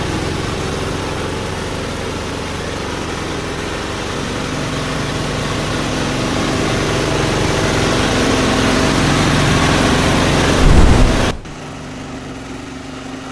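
Chopper-grinder driven by an 8 HP diesel engine running under load, most likely grinding corn cobs: a loud, dense, steady mechanical noise that slowly grows louder. About eleven seconds in there is a loud low thump, then the sound drops suddenly to a quieter steady engine hum.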